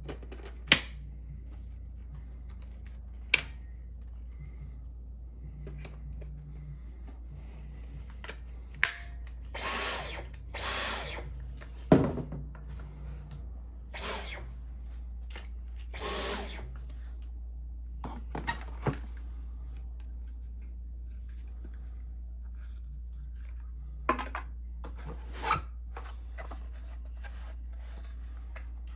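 Handling of the vacuum's plastic parts and packaging: scattered sharp clicks and knocks with a few brief rustles over a steady low hum.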